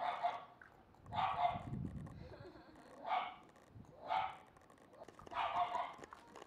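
Shiba Inu puppy barking: five short, high barks a second or two apart.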